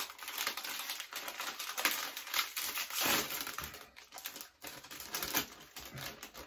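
Plastic snack bag of cheese popcorn crinkling as it is pulled open and handled, a dense run of crackles that thins out near the end.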